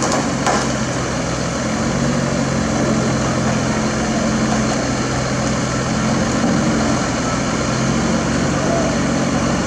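Heavy diesel engine running steadily at an even speed, with a short click about half a second in.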